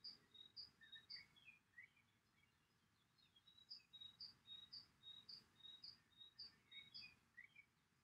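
Faint songbird song: a quick, regular run of thin, high two-note phrases, about two a second, with softer lower chirps mixed in, broken by a pause of about two seconds in the middle before it resumes.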